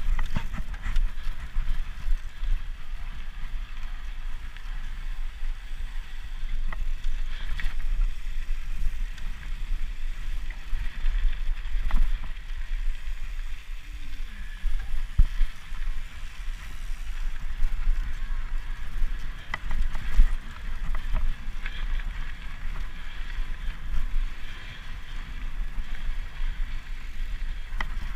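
Mountain bike riding over a dirt and gravel trail: tyres rolling and the bike rattling, with scattered clicks and knocks. Steady wind rumble on the bike-mounted microphone runs underneath.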